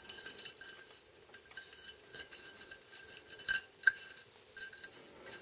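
Thin tie-down wire being handled against the underside of a ceramic bonsai pot: faint scratching and small clicks, with two sharper clicks about three and a half seconds in.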